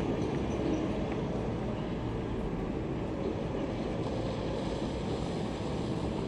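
Steady low rumbling background noise with a faint hiss, even throughout and with no distinct events.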